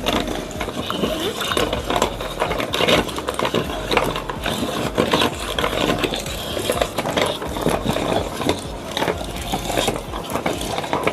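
Electric meat grinder running with a steady motor hum while it crushes marbles, with a dense, irregular stream of clicks and cracks.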